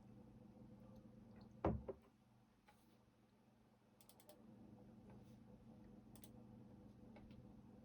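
Sparse, quiet computer keyboard keystrokes: a few scattered clicks and a quick run of four near the middle, over a faint steady hum. About a second and a half in, a louder low thump, followed closely by a smaller one.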